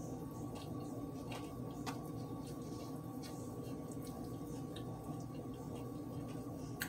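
Someone chewing a mouthful of chicken sandwich with faint wet clicks, and soft sounds of bread being pulled apart by hand, over a steady background hum.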